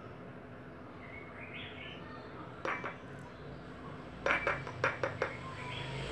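A plastic glue bottle knocked against the rim of a glass bowl to shake out the last of the glue: one clink a little before three seconds in, then a quick run of five or six clinks just after four seconds.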